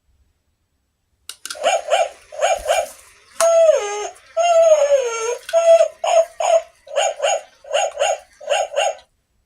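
A dog barking in short, high yaps, mostly in quick pairs, starting about a second in. In the middle come two longer whining calls that fall in pitch.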